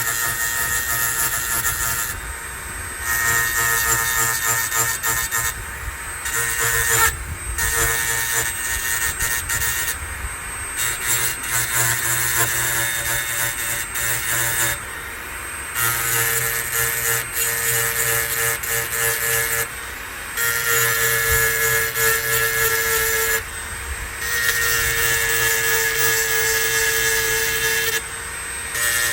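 Sharpening tool rasping along the steel cutting edges of a Stihl HS56C hedge trimmer's double blades, in stretches of a few seconds broken by short pauses as the tool is lifted and moved along the teeth. It is a light touch-up along the existing edge, not a deep grind.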